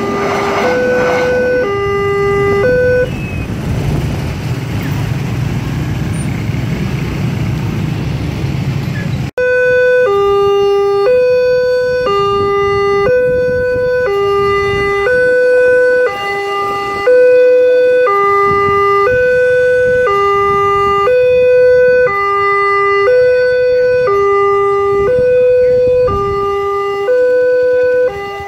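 Railway level-crossing warning alarm sounding an electronic two-tone high-low pattern, about one high-low pair every 1.3 seconds. For the first few seconds a passing train's rumble runs under it and then takes over. After a sudden break about nine seconds in, the alarm sounds alone.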